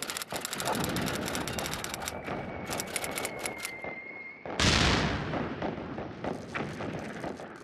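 Battlefield sound effects: rapid machine-gun fire with a thin high tone held under it for a couple of seconds, then one loud explosion about four and a half seconds in that dies away slowly.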